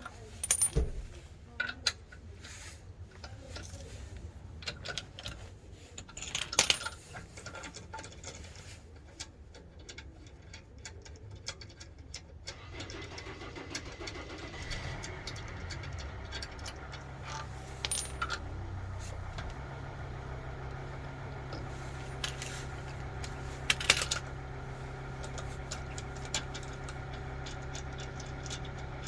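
Sharp metallic clinks, like small metal parts being handled, then a machine motor starts about halfway through and runs on with a steady hum.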